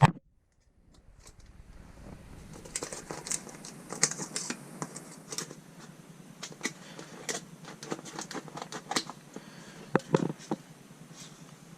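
Irregular crackling, rustling and light clicking of bitumen sound-deadening mat being handled and pressed into place, with a sharp knock at the very start.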